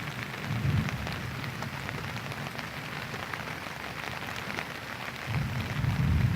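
Steady rain falling, with many small drop impacts pattering throughout. Low rumbles come about a second in and again near the end.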